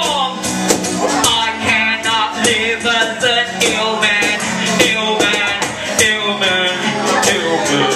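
Live acoustic guitar and cajon playing a song, the cajon's hand strokes keeping a steady beat, with a voice singing a melody over them.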